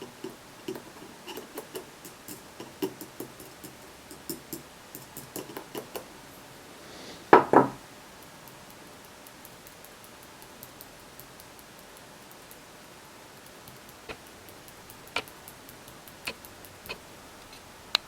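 Loose power button of an iPhone 5s rattling in its housing as the touchscreen is tapped: a run of small, quick clicks, then a louder double knock, then a few more scattered clicks. The rattle is the sign of a worn or detached power button.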